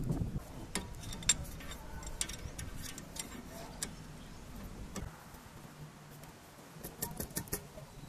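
Scattered light metallic clicks and taps of an adjustable wrench being fitted onto a brake caliper bolt, with a quick cluster of clicks near the end.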